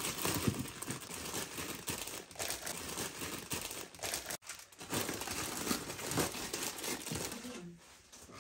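Plastic instant-noodle packets crinkling and rustling as hands shift and arrange them in a drawer. The rustling breaks off briefly about halfway and dies down near the end.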